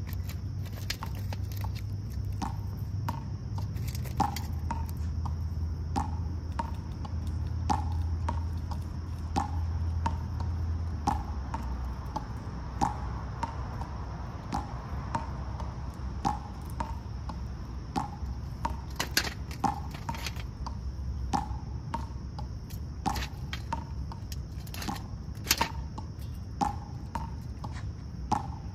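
Squirrels taking and cracking peanuts in their shells: a string of irregular sharp cracks and clicks, roughly one or two a second, over a steady high drone of crickets.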